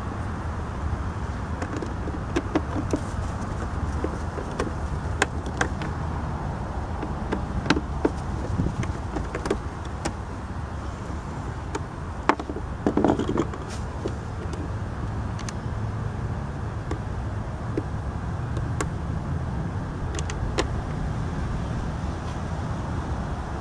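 Scattered light clicks and taps of a Phillips screwdriver turning screws out of a scooter's plastic under-seat bucket, with a short cluster of knocks about twelve seconds in, over a steady low background rumble.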